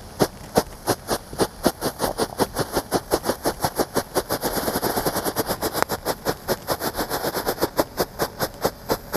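Diwali ground firecracker burning and going off in a rapid, even string of sharp pops, about five or six a second, with a thicker fizzing hiss between the pops around the middle.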